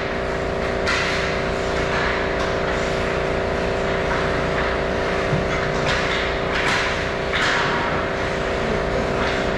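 Ice skate blades scraping and cutting the ice in short hissing bursts, about five times, over a steady mechanical hum made of several level tones.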